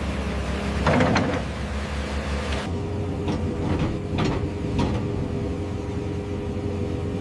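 Heavy machinery, an excavator, running steadily with a low engine hum. A loud metallic clank rings out about a second in, and three sharper knocks follow a couple of seconds later.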